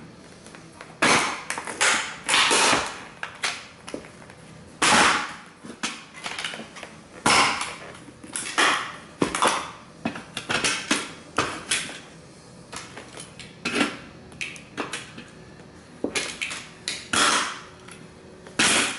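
Cowboy boots stomping on and crushing model train buildings: a long series of crunches and cracks of breaking model pieces at uneven intervals, with debris scraping and crackling underfoot between the stomps.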